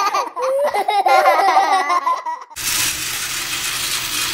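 High-pitched cartoon giggling from a logo jingle, then from about two and a half seconds in a steady whirring rattle of a battery-powered Plarail toy train running on plastic track.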